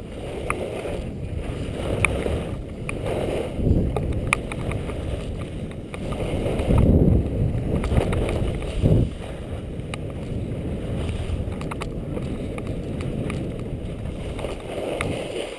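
Wind rushing over a helmet-mounted camera, mixed with the hiss and scrape of edges sliding on packed snow during a downhill run. The rumble swells louder several times, most around the middle.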